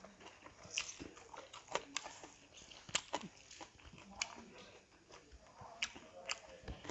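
Close, wet chewing and lip-smacking from people eating boiled pork and rice by hand, with irregular short smacks and clicks.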